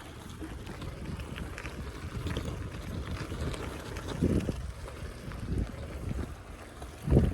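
Wind buffeting the microphone: a steady low rumble with stronger gusts about four seconds in and again near the end.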